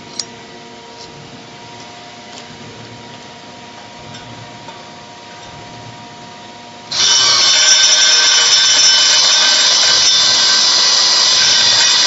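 Quiet room hum with a single click just after the start, then about seven seconds in a power tool starts suddenly and runs loud and steady at a constant pitch.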